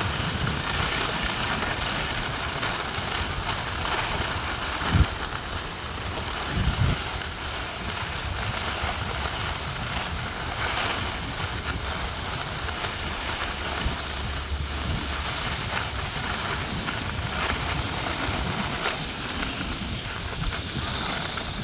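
Skis sliding and scraping over groomed piste snow in a steady hiss, with two thumps about five and seven seconds in.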